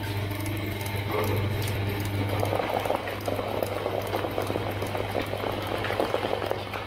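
Small twin-shaft shredder running empty: a steady electric-motor hum with a dense, rapid crackling clatter from the turning cutter discs, the clatter growing louder after about two and a half seconds.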